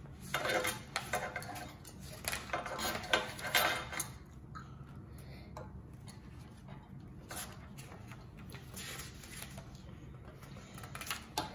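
A picture book being handled and its pages turned on a glass-topped table: soft paper rustles and light clicks and clinks, busiest in the first few seconds, then sparser.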